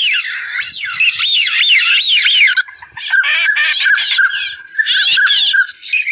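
Bird calls played loud through a small handheld loudspeaker used as an electronic bird caller: a dense run of quick squawking, chirping calls sliding up and down in pitch, with a short break about three seconds in.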